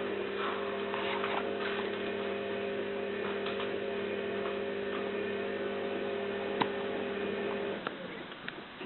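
A steady machine hum made of a few held tones, which stops about a second before the end, with a single sharp click about two-thirds of the way in.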